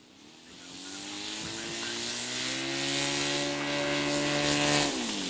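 Hangar 9 Cessna 182 model airplane's motor and propeller spinning up, rising in pitch and loudness over about two seconds, holding a steady note with propeller hiss, then dropping sharply in pitch near the end.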